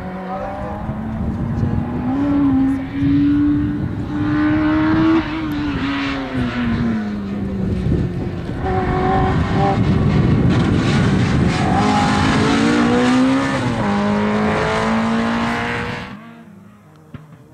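Rally car engine run hard, its note climbing and dropping repeatedly as it changes gear, over a dense rush of noise. The sound falls away sharply near the end.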